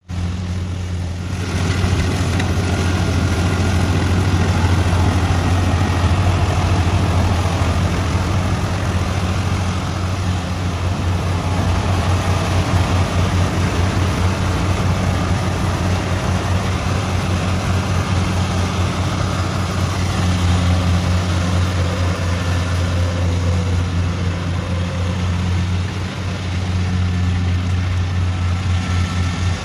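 Tracked rice combine harvester running steadily while cutting and threshing rice: a constant low engine drone under a dense machinery rattle.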